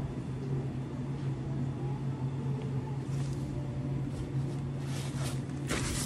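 Steady low machine hum of commercial kitchen refrigeration. Near the end comes a burst of paper-towel rustling as a sheet is pulled off and handled.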